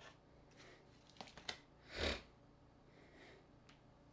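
Mobile phones being handled on a tabletop: a few light clicks and taps as they are picked up and set down, then a short, louder puff of noise about two seconds in.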